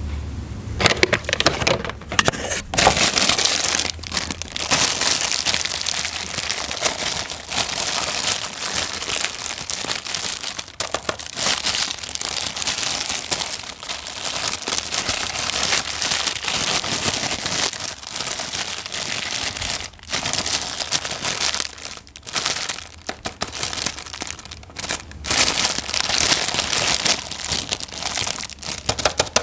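Toy packaging crinkling and rustling continuously as it is handled and unwrapped during an unboxing, with a few brief pauses.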